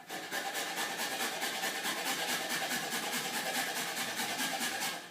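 Whole nutmeg rasped back and forth on a grater in rapid, even strokes.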